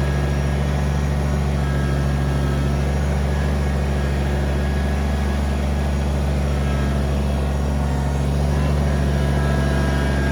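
Kubota BX23S compact tractor's three-cylinder diesel engine running steadily at an even speed.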